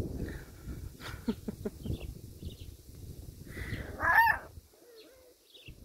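Miniature schnauzer puppies play-fighting, with one short, loud, high yip about four seconds in.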